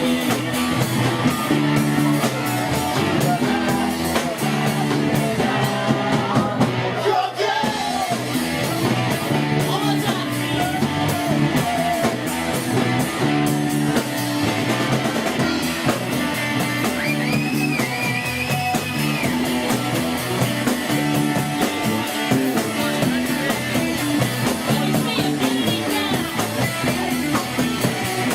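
Rock band playing live: electric guitar, bass and drums, with a voice singing.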